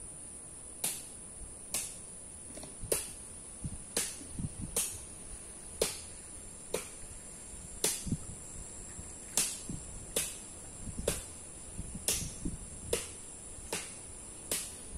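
Steady high-pitched drone of insects in the mangrove, with a sharp click repeating roughly once a second throughout.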